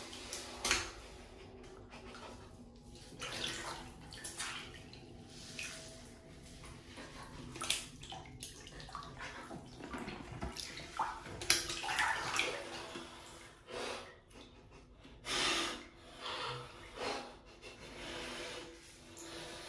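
Wet squelching in irregular short bursts, from the lotion-slick silicone sleeve and sponge of a taken-apart TENGA cup being squeezed and handled.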